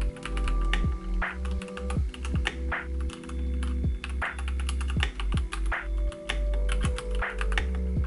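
Typing on an iLovBee i87 mechanical keyboard with red linear switches: a quick, irregular run of key clacks. Lofi background music with a steady bass line plays under it.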